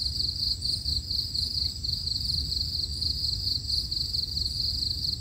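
Insects chirping in a steady, rapidly pulsing high trill, over a low background rumble.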